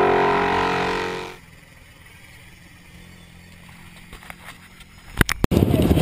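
Background electronic music fades out about a second in, leaving the faint, steady engine of a side-by-side UTV racing across the field. Near the end come two sharp knocks, and then a dirt bike's engine starts running loud, close to the camera.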